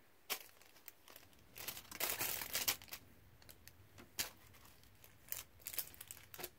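Clear plastic packaging bags crinkling as a fabric face mask is handled and pressed down onto them, in short irregular spells, busiest about two seconds in.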